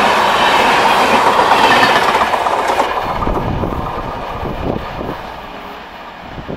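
Tejas Express coaches running past at speed, a loud rush of wheels on rail, then the last coach moving away, its wheels clattering over the rail joints and fading.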